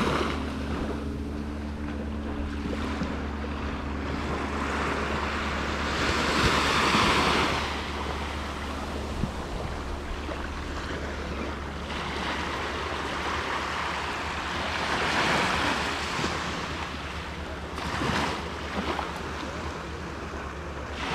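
Sea surf breaking and washing up a sandy beach, coming in slow swells, the biggest about six seconds in, with wind on the microphone.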